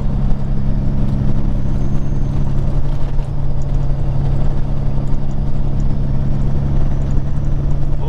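Peterbilt 379 semi truck's diesel engine running at a steady cruise along with tyre and road noise: a steady low drone.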